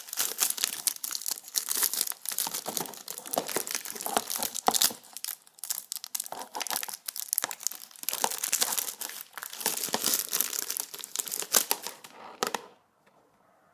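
Plastic shrink-wrap being torn and crumpled off a DVD case: dense, irregular crinkling and tearing that stops about a second before the end.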